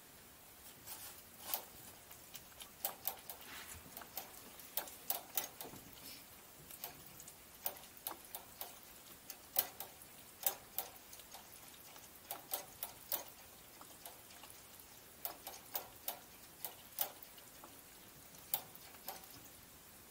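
Faint, irregular light clicks and taps, some in quick clusters, from a small puppy moving about inside a wire crate.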